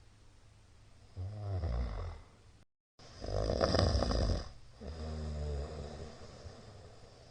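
A middle-aged man snoring in his sleep: three loud, low snores starting about a second in, the middle one the loudest. The sound cuts out to dead silence for a split second between the first two snores.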